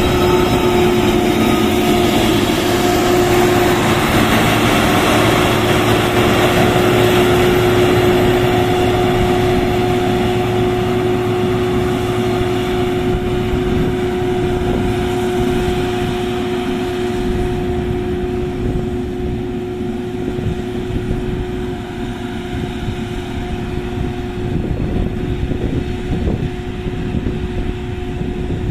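XCMG GR1803BR motor grader's diesel engine running as the grader works the road and draws away, fading gradually. A steady whine sits over the engine noise.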